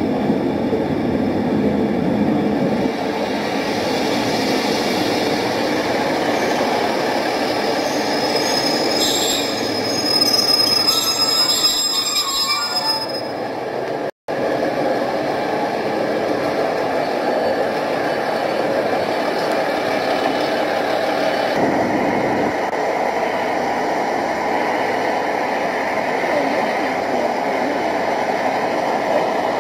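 Train sound from a model class 150 diesel multiple unit running into the platform and standing at it, with high squealing a few seconds before a brief dropout about halfway.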